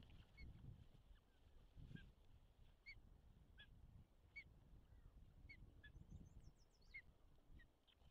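Osprey calling faintly: a run of about ten short whistled chirps, roughly one a second, over a low rumble.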